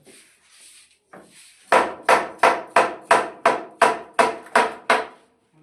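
Hammer striking wood in a steady run of about ten blows, roughly three a second, after a faint scrape and a light knock.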